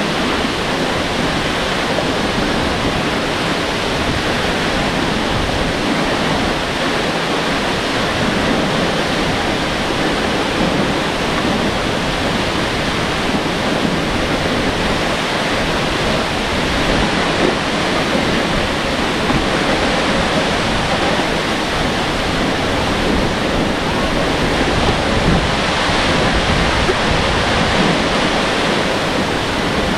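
Aw-asen Falls, a 120-metre waterfall, pouring: a loud, steady rush of falling water.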